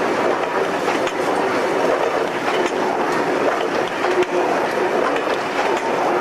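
Freight train hopper wagons rolling past close by: a steady rumble of wheels on rail with irregular clicks and knocks as the wheels cross the rail joints.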